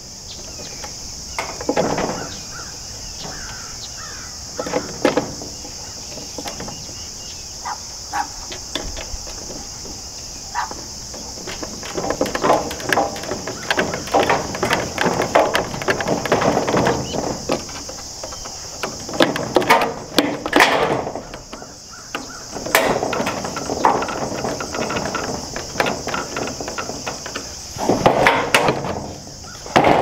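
Plastic trough feeder parts clattering and rattling in bursts as they are handled and screwed together, over a steady high insect drone.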